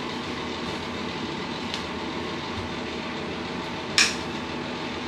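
Steady hum and hiss of a ventilation fan, with one short sharp click about four seconds in.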